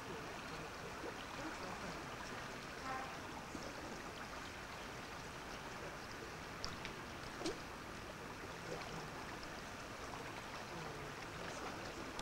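Steady rushing of a small river running, with a couple of faint clicks about halfway through.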